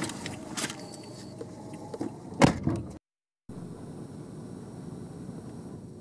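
Camera handling noise: several sharp clicks and knocks in the first three seconds, one followed by a brief high whir. Then comes half a second of dead silence and a steady faint hiss.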